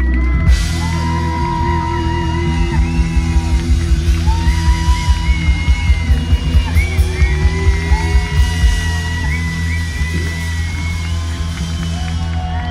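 Live rock band playing: electric guitars, bass, drums and keyboards under a lead singer's long held sung lines, with a steady pounding beat of about three strokes a second through the middle.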